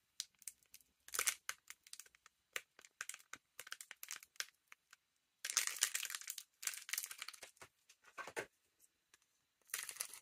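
Foil wrapper of a Lorcana trading-card booster pack crinkling as it is peeled open by hand, in irregular crackly bursts, the longest about five and a half seconds in.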